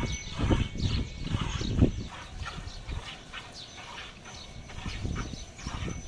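Milk squirting from a cow's teats into a steel bucket during hand milking: short squirts repeating about twice a second. There are louder dull thumps in the first two seconds.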